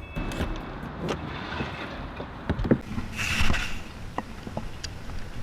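Sounds of a fishing kayak on a river: a steady background of moving air and water, scattered light knocks and clicks, and a brief hissing rush about three seconds in, the loudest moment.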